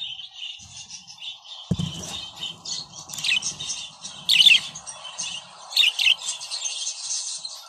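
Budgerigars chattering in a steady high warble, broken by sharper, louder chirps, the loudest about halfway through and a pair about six seconds in. A dull low thump sounds just under two seconds in.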